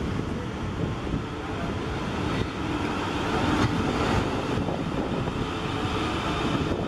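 South Western Railway Class 450 Desiro electric multiple unit running past at close range as it pulls into the platform, a steady rumble of wheels and running gear on the rails.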